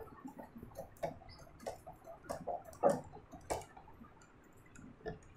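Cloth wiping marker writing off a whiteboard: a run of short, irregular rubbing strokes, the strongest about three seconds in.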